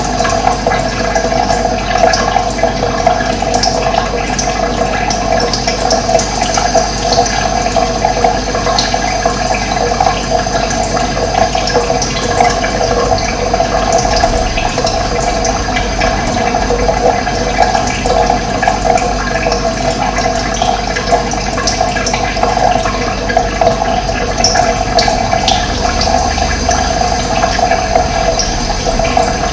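Running water rushing steadily, with a few faint, brief bird chirps now and then.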